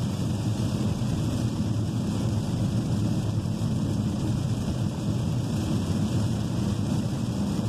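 Steady low rumble inside a Chevrolet car driving through heavy rain, with rain on the body and windscreen and tyres on the wet road.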